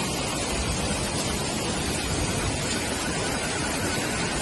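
Hailstorm: hail and rain coming down hard in a steady, dense hiss on the paving and parked cars.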